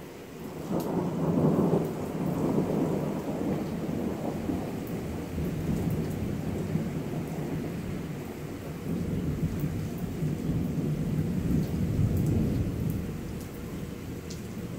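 Thunder rumbling and rolling, rising sharply about half a second in, loudest in the first two seconds, swelling again near the end and then fading, over steady rain.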